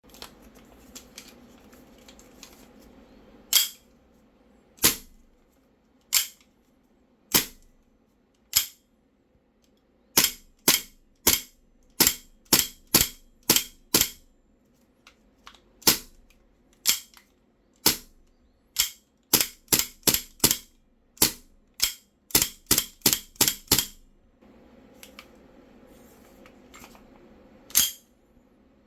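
Gas blowback airsoft pistol (a VFC Sig Air M17 with a steel slide) firing, each shot a sharp crack with the slide cycling. First come five shots at an even pace, then a pause, then faster strings of shots, some in quick succession. There is a low murmur with small clicks at the start and again shortly before a last shot near the end.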